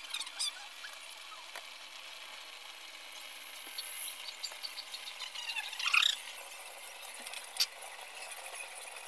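Pan of chicken feet adobo simmering under a glass lid: a steady low hiss with a few high squeals, the loudest about six seconds in. A sharp clink comes near the end as the lid comes off and a spoon goes into the pan.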